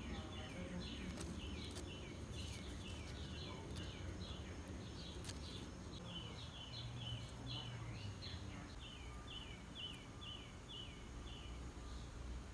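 A small bird calling in a rapid series of short, high, down-slurred chirps, about two or three a second, which stop near the end. A steady low rumble runs underneath.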